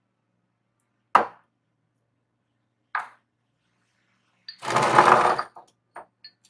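Metal and plastic workpieces set down on a workbench: two sharp knocks as a stepped aluminium cylinder and a black plastic puck are put down, then a longer clatter as a steel rod and a brass hex bar are laid down beside them, with a couple of light clicks near the end.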